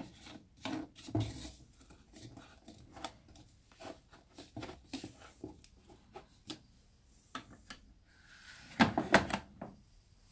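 Plastic clicks and knocks from handling a Bendix washing machine's detergent drawer and porthole door, scattered through, with a low thump about a second in and a quick cluster of sharp knocks about nine seconds in.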